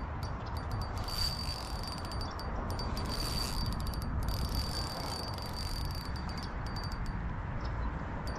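Insects trilling in a high, thin, steady tone that comes and goes in stretches of a second or so, over a steady low rumble.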